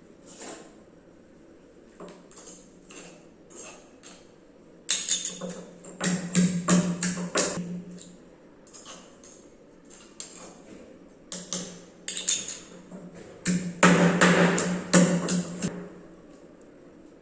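Pestle pounding small onions (shallots) in a mortar, crushing them to a pulp: quick runs of knocking strikes with short pauses between the runs.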